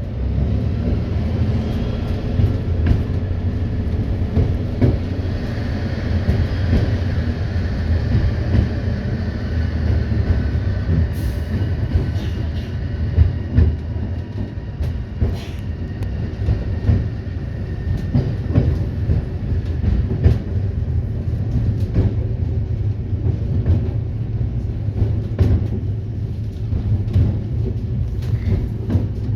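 NSB train running along the track: a steady low rumble with scattered clicks and knocks from the wheels on the rails.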